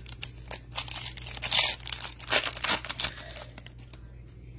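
Foil wrapper of a Panini Flux basketball card pack being torn open and crinkled by hand: a quick string of crackling rips and crumples that dies down after about three seconds.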